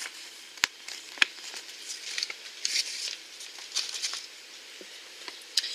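Paper leaflet and toy packaging rustling and crinkling as they are handled, in short bursts, with two sharp clicks in the first second and a half.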